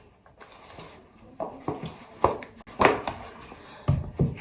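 Several short knocks and taps of handled objects, spread about half a second to a second apart, over quiet room tone.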